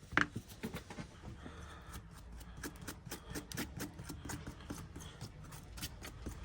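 Irregular small clicks and scraping as a pry tool works along the edge of a shattered tablet screen, the cracked glass crackling as it gives.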